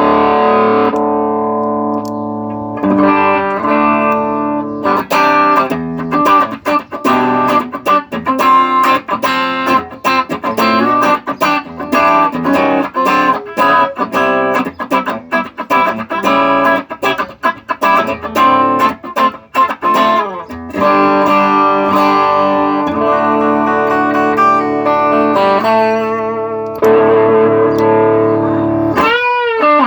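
Electric guitar played through a TC Electronic Nova Drive overdrive pedal, sound-tested after its gain and volume pots were replaced. It opens with ringing chords, moves to a long run of quick picked notes, then returns to held chords, with a brief sweeping change in tone near the end.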